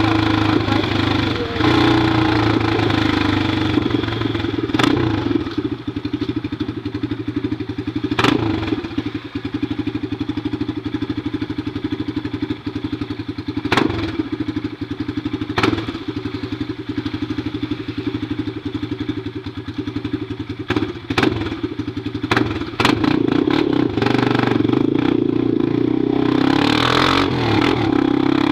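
Honda NX Falcon single-cylinder engine running through a bare pipe with no muffler while riding, steady with a few sharp cracks and louder near the end.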